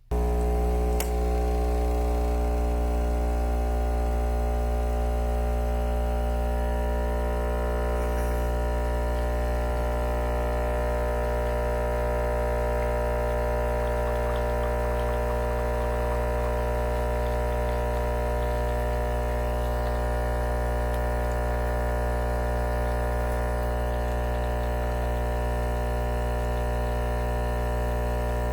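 The pump of a Lavazza Blue Classy Mini LB 300 capsule espresso machine running as it brews, a steady loud buzzing hum that starts suddenly and holds unchanged.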